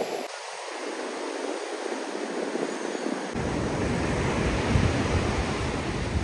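Ocean surf breaking on a rocky beach, a steady rushing wash of waves. About three seconds in it becomes closer, deeper and fuller.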